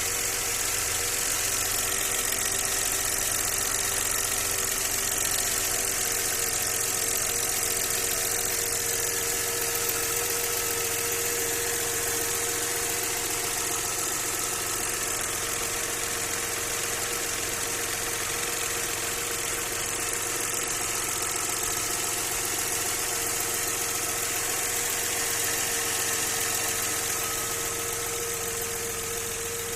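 Audi 100 C4's 2.6-litre V6 engine (ABC) idling steadily.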